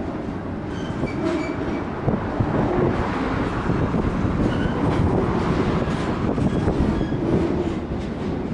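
Train passing close by: steady noise of steel wheels running on the rails, with short high squeals from the wheels now and then.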